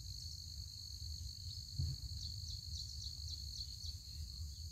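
A steady high-pitched insect chorus with faint chirps repeating about twice a second, over a constant low outdoor rumble; a soft knock about two seconds in.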